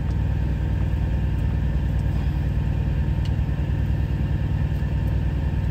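A semi truck's diesel engine idling, heard inside the sleeper cab as a steady low rumble.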